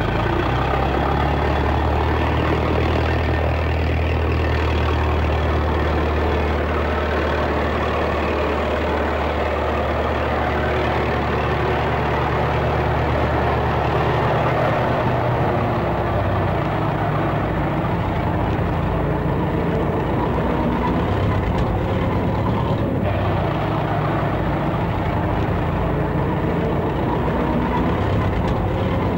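Heavy engine of a front-loader tractor running steadily, its low note shifting about halfway through as the loader works.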